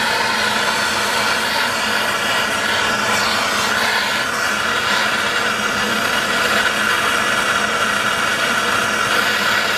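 Handheld MAPP gas torch burning with a steady, constant hiss, its flame held on a crucible to melt sterling silver.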